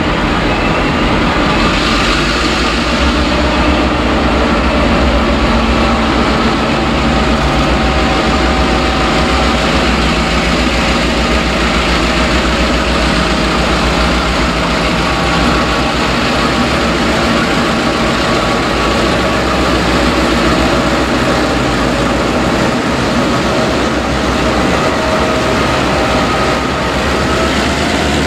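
Vintage diesel-electric locomotives, a B class leading and T classes behind, hauling a container freight train away from a standstill in the crossing loop and past the platform. The engines run loud with a steady low rumble under the clatter of the train.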